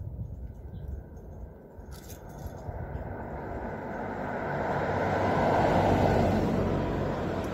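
A vehicle passing by, its road and engine noise growing louder over several seconds to a peak near the end, then starting to fade.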